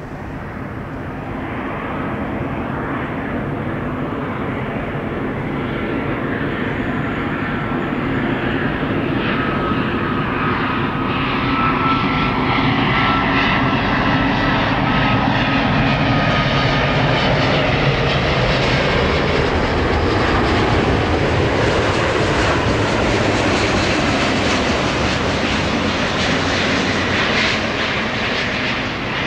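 Airbus A350-1000 airliner on landing approach, its Rolls-Royce Trent XWB jet engines growing louder as it nears, then holding steady. A faint high whine falls slowly in pitch through the first half.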